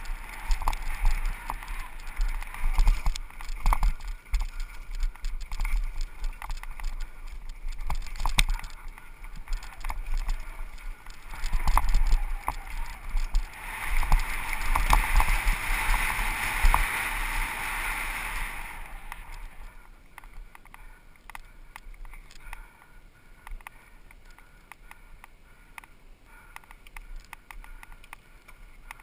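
Helmet-camera sound of a downhill mountain bike at speed on a dirt track: wind buffeting the microphone with the bike's chain and frame rattling over bumps, louder in the middle. About two-thirds of the way in it quietens as the bike slows.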